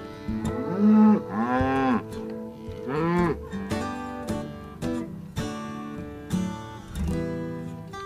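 Cattle mooing: three moos in the first half, each rising and then falling in pitch, the first the loudest, over strummed acoustic guitar music.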